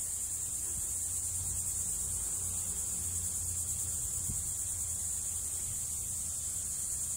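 Insects trilling steadily in a high, fast-pulsing buzz, with a faint low hum underneath.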